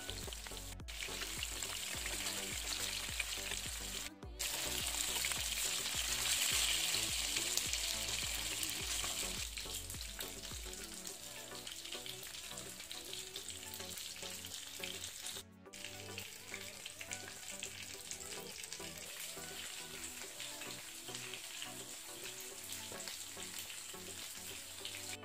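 Fish steaks coated in green masala shallow-frying in hot oil in a pan, sizzling and crackling steadily, with a few momentary breaks.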